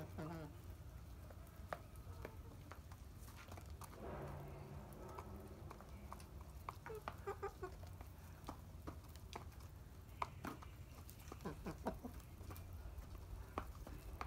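Chickens clucking quietly while they feed, with many short sharp taps of beaks pecking grain from a plastic tray.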